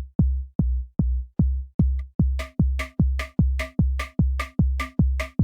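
Electronic dance music with a drum machine: a steady deep kick about two and a half times a second, joined about two and a half seconds in by sharper off-beat hits and a held synth note.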